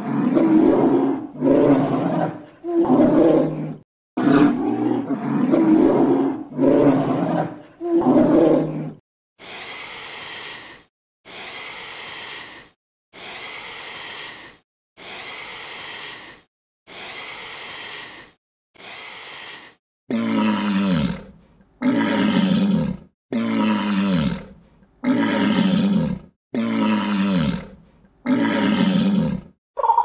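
A series of animal calls repeated about once a second: first a run of low calls, then about ten short hissing bursts, then about ten calls that each fall in pitch.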